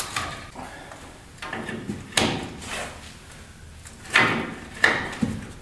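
Metal clanks and scrapes from hands and tools working the hook-shaped retainer off the top of a truck's front coil spring: several sharp knocks, the loudest about two seconds in and twice near the end.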